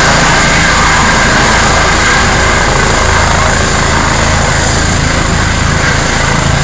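Rescue helicopter's turbine and rotor running loud and steady as it sets down close by on the snow, easing off slightly toward the end.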